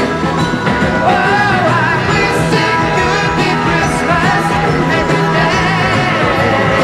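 Background music: a song with a singing voice over a steady, full band mix.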